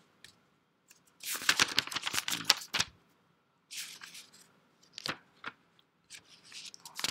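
Irregular bursts of crackling rustle close to the microphone, with short quiet gaps between them.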